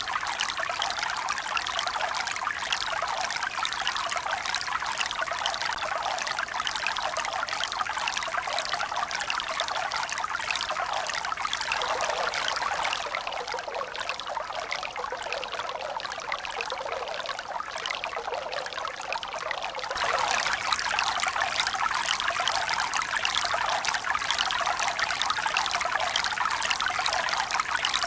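Steady rush of running water, even and without the rise and fall of breaking waves. It softens a little partway through, then turns suddenly louder about two-thirds of the way in.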